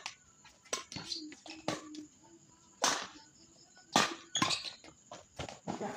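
Irregular sharp hits of a racket rally, some spaced under a second apart and others over a second. The two loudest come about three and four seconds in.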